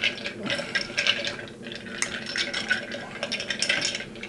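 Sucking through a straw at the bottom of an empty juice cup: a noisy slurp of air and the last drops, broken by small clicks and rattles.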